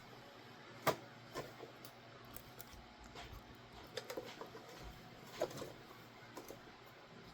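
Scattered light clicks and taps of plastic parts being handled, with one sharp click about a second in and a cluster of smaller taps a few seconds later.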